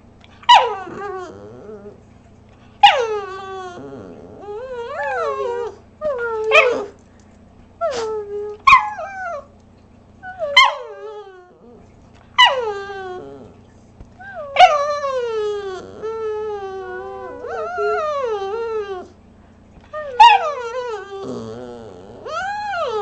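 A Bugg (Boston terrier–pug mix) dog making about a dozen vocal calls in a row, each starting high and sliding down in pitch. Most are short, and a few in the middle are drawn out.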